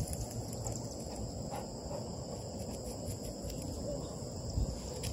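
Steady high-pitched chorus of insects, over a low rumbling background noise.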